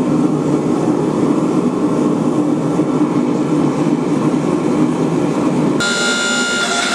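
Gas forge burner running with a steady rush. About six seconds in, the sound cuts abruptly to guitar music.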